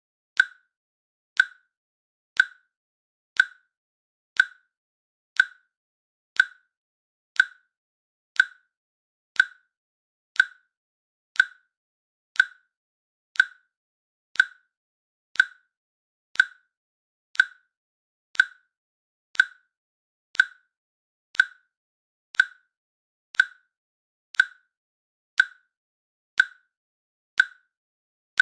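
Countdown timer's click sound effect: one short, sharp click every second, evenly spaced, ticking off the seconds.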